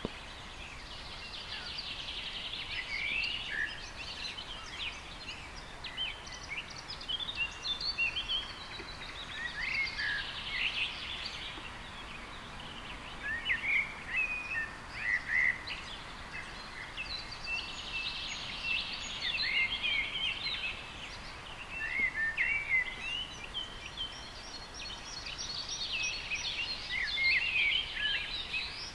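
Birds chirping: many short, quick calls coming in clusters, over a steady background hiss.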